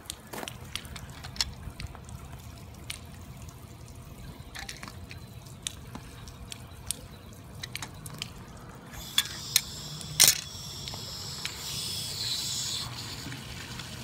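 Water trickling and dripping, with scattered sharp clicks and a few louder knocks about ten seconds in. A hiss comes in about nine seconds in and stops near the thirteenth second.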